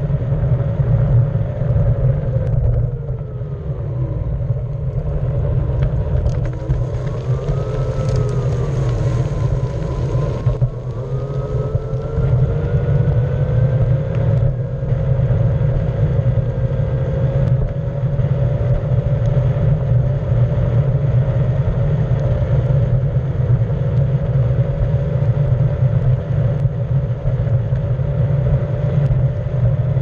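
Onewheel electric skateboard riding over rough asphalt: a heavy tyre rumble with the hub motor's whine rising and falling with speed. It drops about four seconds in, wavers around eight to ten seconds, then climbs back and holds steady.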